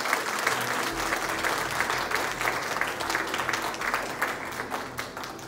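Theatre audience applauding, a dense patter of many hands clapping that dies away near the end.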